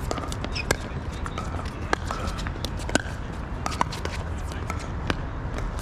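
Pickleball paddles hitting a plastic ball in a rally: five sharp pops about a second apart, with fainter clicks in between.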